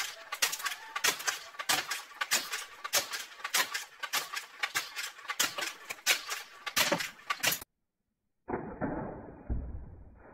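Rapid fire from a pump-action wooden slingshot crossbow: 5 mm steel balls strike a wooden block held in a metal vise. It makes a fast, irregular run of sharp cracks and knocks, about three a second, that stops suddenly about seven and a half seconds in. After a second of silence comes a muffled thud and hiss as a liquid-filled can target is hit and bursts.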